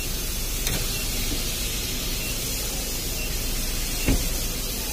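Steady hiss, with a faint click about a second in and a short thump near the end.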